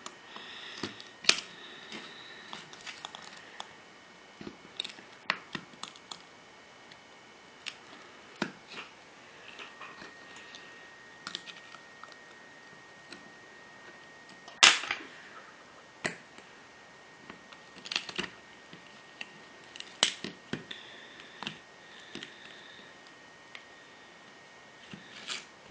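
Irregular small clicks and snaps of a pry tool picking cracked glass off an iPhone 3GS's front panel, with one sharper, louder snap about halfway through.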